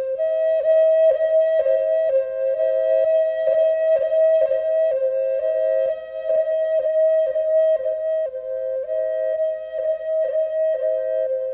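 Background music: a flute-like wind melody of long, held notes that change pitch every second or so.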